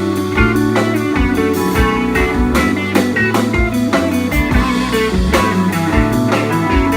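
Live band playing an instrumental passage: guitar over bass, with a drum kit keeping a steady beat of about two hits a second.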